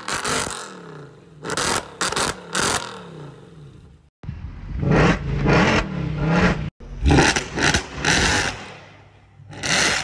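Mercedes W204 C63 AMG's naturally aspirated 6.2-litre M156 V8 free-revving through MBH long-tube headers, straight pipes in place of the secondary catalytic converters and stock resonators. It gives a series of quick throttle blips that fall back each time, with a longer rev in the middle, in separate short recordings cut together.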